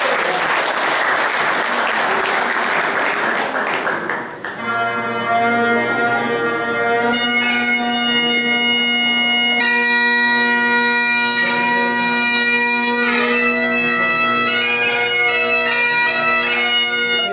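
Audience applauding for about four seconds, then Great Highland bagpipes strike up: the drones sound first as one steady chord, and the chanter comes in with a tune about two seconds later.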